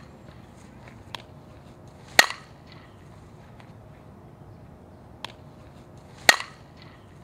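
Softball bat hitting a softball twice, about four seconds apart, each a sharp crack with a brief ring after it. A fainter tap comes about a second before each hit.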